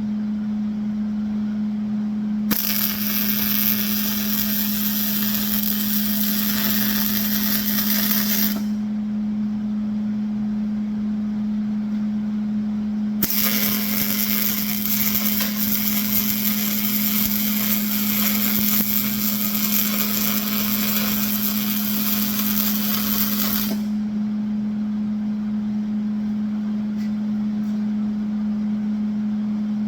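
Two welding beads on the steel frame, the arc crackling and sizzling for about six seconds and then, after a pause, for about ten seconds, over a steady low hum.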